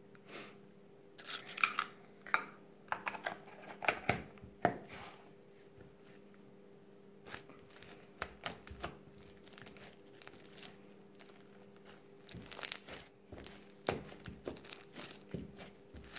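Irregular crinkling and crackling from materials being handled, in short scattered bursts at uneven intervals, over a faint steady hum.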